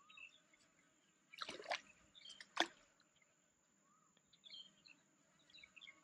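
Small splashes at the water surface as a fish hooked on a bamboo pole line struggles: a short cluster about a second and a half in and a sharper single splash soon after. Faint bird chirps follow.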